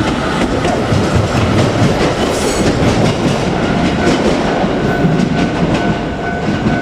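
JR Kyushu 817 series electric train passing close by, its wheels clattering over the rail joints in a steady loud rush. A pair of steady tones comes in about two-thirds of the way through.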